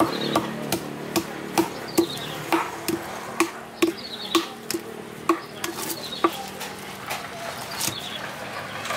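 Knife scaling a grouper on a chopping block: sharp scraping strokes, about two or three a second, that thin out about six seconds in.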